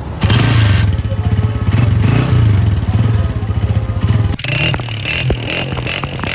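125cc motorcycle engine running loud with a rapid, even firing beat, the pitch wavering slightly with the throttle. About four seconds in it drops back and turns into rough, irregular clattering knocks.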